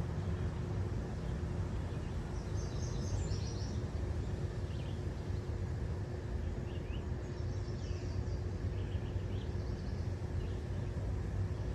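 Car rolling slowly along a paved road, a steady low rumble of engine and tyres. Birds chirp in short bursts, twice: about two seconds in and again around the middle.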